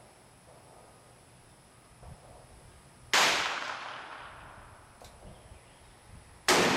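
Two shots from a Ruger Single Six revolver firing black-powder .32 H&R Magnum handloads, about three seconds apart, the second near the end. Each shot trails off in a long echo, and a faint click sounds between them.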